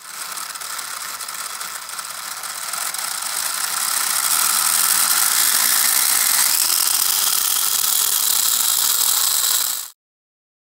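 Homemade mini radial engine of five small DC motors running with a buzzing, rattling whir. It grows louder a few seconds in, with a faint tone rising in pitch, and cuts off suddenly near the end.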